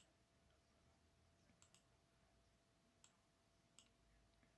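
Faint computer mouse clicks in near silence: about five short clicks, two of them in quick succession about a second and a half in.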